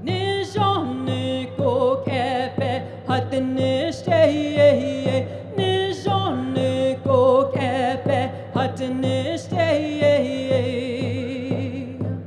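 A woman singing a song in the Navajo language with vibrato, over a steady drum beat of about two to three strikes a second.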